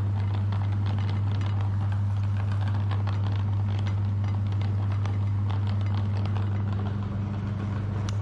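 Electric meat grinder running with a steady low hum, scattered crackles and clicks over it as jelly is forced through.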